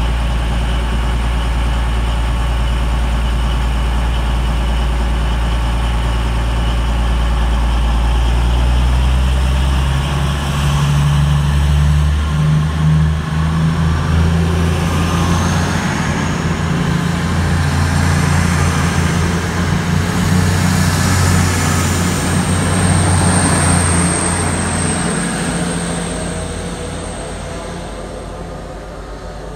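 Class 222 Meridian diesel-electric multiple unit pulling away: its underfloor Cummins diesel engines run low and steady, then rev up about ten seconds in as the train accelerates. The sound fades over the last few seconds as the train moves off.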